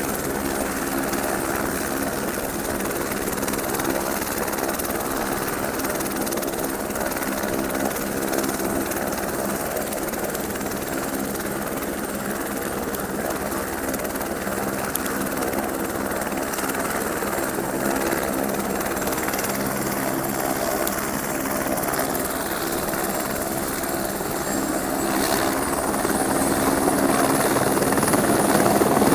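Helicopter running on the ground with a steady turbine and rotor sound. In the last few seconds a high whine rises and the sound grows louder.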